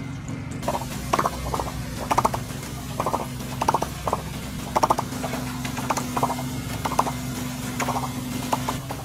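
Metal picks clicking and scraping in a takoyaki pan as the balls are turned, in short rattling strokes roughly two a second, over a steady low hum.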